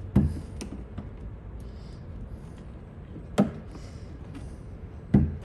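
Three sharp clicks and knocks, a second or two apart, of hands or a tool working the plastic locking tab inside a car door's handle mechanism. A low hum runs underneath.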